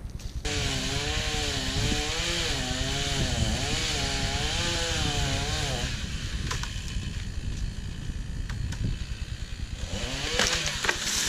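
Two-stroke chainsaw cutting into a tree, its engine note wavering up and down under load, then running quieter from about six seconds in.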